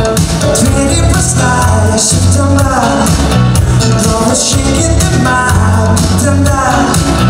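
A man singing into a handheld microphone over loud backing music with a heavy, steady bass line; his voice slides down in pitch at the ends of several phrases.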